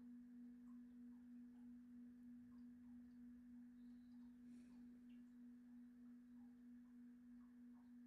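A large Hess singing bowl ringing out after a strike: one low, steady tone with a softer higher overtone, faint and slowly fading, wavering about twice a second.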